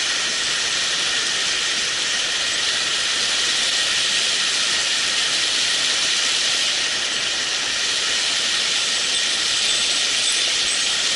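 Mountain stream water rushing steadily over rocks, an even hiss with no rise or fall.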